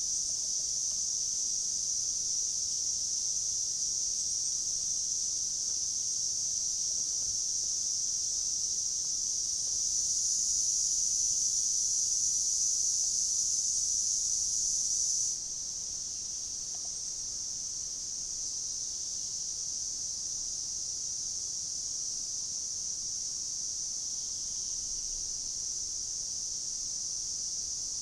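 Summer insect chorus: a steady, high-pitched continuous buzz. It swells about ten seconds in and drops suddenly a little past the midpoint, then holds steady at the lower level.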